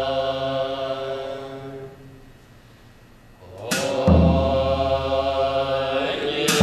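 Tibetan dungchen long horns sounding a deep, steady drone with layered overtones that dies away about two seconds in. After a short lull a cymbal crash comes, the horns enter again and hold, and another crash lands at the end.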